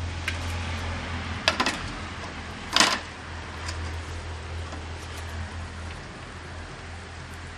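A metal skimmer clinks against a metal bowl: a few light taps about a second and a half in, then one loud knock, as fried cashews and raisins are tipped off it. Under this, hot oil in a pot hisses steadily as it fries.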